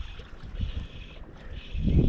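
Wind buffeting the microphone eases into a lull just at the start and picks up again near the end. In between, a faint hiss comes and goes about once a second.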